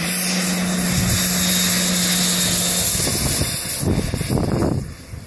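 Radio-controlled L-39 Albatros model jet's engine running at high power as the model rolls over the grass: a loud, steady jet hiss with a low hum. The hiss fades after about three seconds as the jet moves away, leaving gusty rumbling.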